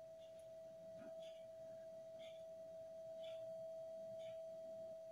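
Faint steady hum at a single pitch, with soft faint ticks about once a second.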